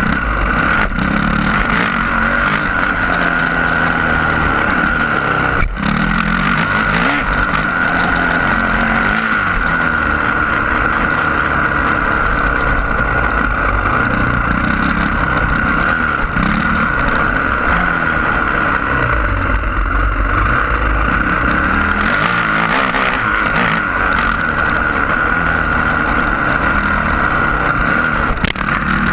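Yamaha YZ450F's single-cylinder four-stroke engine running hard as the bike is ridden around a dirt motocross track. The revs rise and fall over and over with the throttle.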